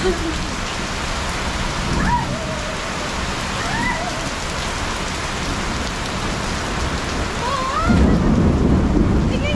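Heavy rain pouring down steadily, with a low rumble swelling in near the end.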